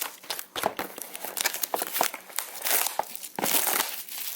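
Crinkling plastic wrap and rustling of a sealed trading-card box being handled and unwrapped, in irregular bursts with a longer rustle near the end.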